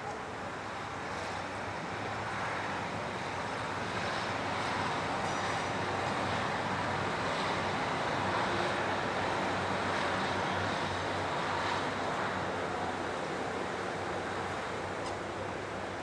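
Steady outdoor rushing noise with a low hum underneath. It grows louder a couple of seconds in and eases off near the end.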